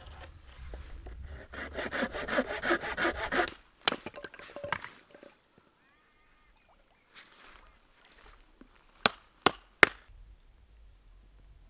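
A run of quick, rhythmic scraping strokes lasting about two seconds, then a sharp click, and three loud sharp clicks close together near the end.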